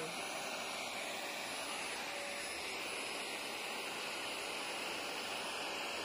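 Shop vac running steadily, a constant rushing suction noise through its hose.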